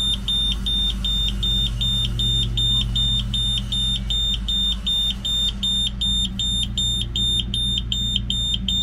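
Shelly Flood water-leak sensor sounding its alarm: a high-pitched beep repeated rapidly, about three times a second. It is triggered by water reaching the sensor's metal contact pins.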